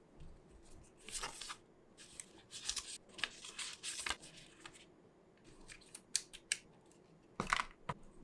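Hands handling an iPhone 12 Pro Max box and its packaging: a string of short rustles, scrapes and clicks, with a louder burst near the end.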